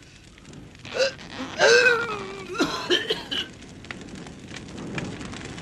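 Wordless cartoon voice sounds: a short grunt about a second in, then a longer groan that falls in pitch, and a few more short strained sounds.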